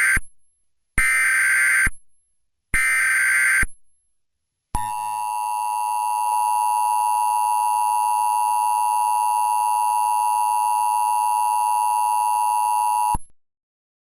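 Emergency Alert System header tones: the end of one burst of buzzing SAME data, then two more bursts about a second long each, followed by the two-tone EAS attention signal, a steady harsh beep held for about eight seconds and cutting off sharply.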